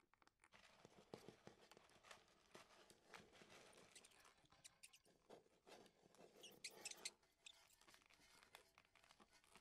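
Near silence broken by faint, irregular little crackles and ticks, a bit busier about two-thirds of the way through.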